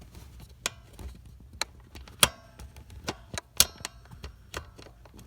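Metal hand tools clicking and clinking at irregular moments, with a few louder clinks that ring briefly. These are sockets being handled and tried on the blower motor resistor bolts.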